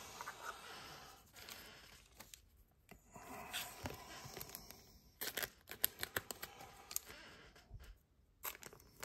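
Trading cards and their packaging being handled up close: soft rustling and crinkling, then a run of light clicks and taps about five seconds in.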